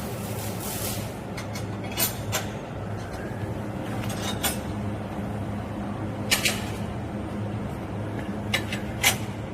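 Steady electrical hum of a CO2 welding machine, with short sharp metallic clinks, about seven in all, scattered every second or two. A hiss dies away about a second in.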